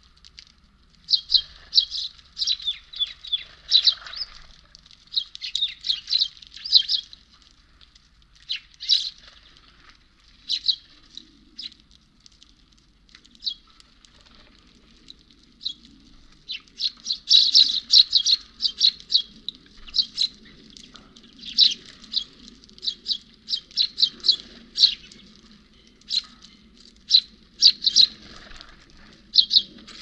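Sparrows and finches at a seed feeder chirping: many short, high chirps in quick clusters, thinning out for a few seconds in the middle and then coming thick and fast through the second half.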